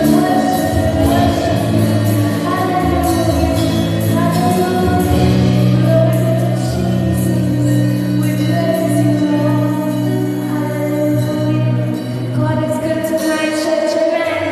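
Church worship music with singing over long held notes.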